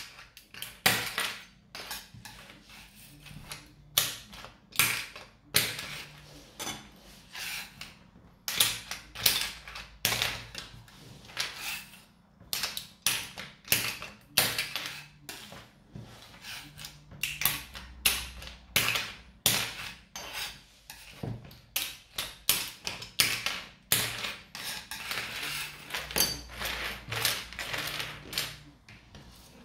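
Irregular sharp clicks, cracks and clacks of hard PLA plastic, about one or two a second, as a large 3D-printed articulated octopus is worked loose from the printer's bed sheet. Its jointed tentacle segments knock together.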